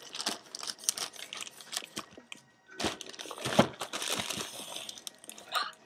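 Shipping packaging being handled and opened: continuous crinkling and rustling with many sharp crackles, louder about a second in and again past the middle.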